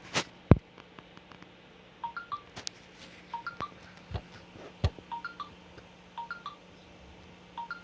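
Scattered clicks and a sharp knock about half a second in, from hands working on a Brother LS-2125 sewing machine, over a faint steady low hum. Short high chirping notes in quick twos and threes repeat every second or so.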